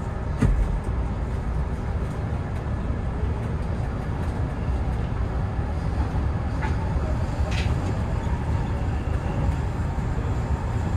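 Hanshin 9000 series electric train running at speed, heard from inside the front of the car: a steady low rumble of wheels on rail. There is a single knock about half a second in and two brief high squeals near the middle as the train takes a curve.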